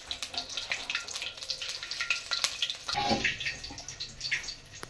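Cumin seeds sizzling and crackling in hot ghee in a steel karahi: the tadka for the kadhi. About three seconds in, the crackle thins out and a lower, duller sound takes over.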